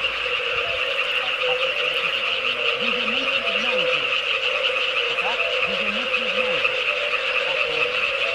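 A dense chorus of many frogs calling at once from the lake, a steady mass of lower and higher-pitched calls.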